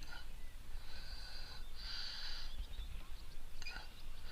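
Fishing reel letting out line in short spells, each a brief run of fast clicking, over a steady low rumble.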